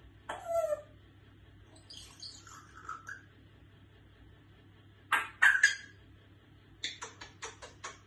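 African grey parrot making short calls and sneezes. A falling call comes near the start, the loudest double burst about five seconds in, and a quick run of short sounds near the end.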